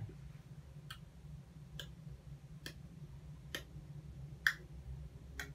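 A clock ticking slowly and evenly, six ticks a little under a second apart, one near the end louder than the rest, over a faint low hum.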